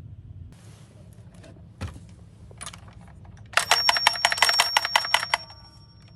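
Toy minicar: a light rolling hiss with small clicks and a knock, then about three and a half seconds in a loud, rapid ringing like a small electric bell, about ten strikes a second, for roughly two seconds.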